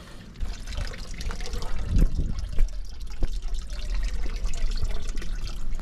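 Spring water trickling and gurgling as a plastic bottle is dipped into a stone spring basin and filled, with a steady low rumble underneath.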